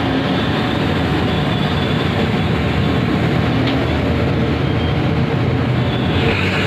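Steady road-traffic noise: a continuous rumble and hiss of passing vehicles.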